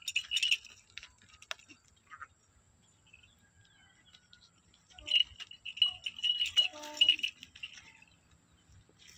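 Small metal fittings on an animal's collar jingling in quick shakes as a ram and a dog scuffle. There is a brief spell at the start and a longer one from about five to seven seconds in.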